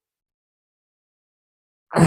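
Dead silence for almost two seconds, then a sudden, loud breath right at the end, from a person exerting in a yoga pose.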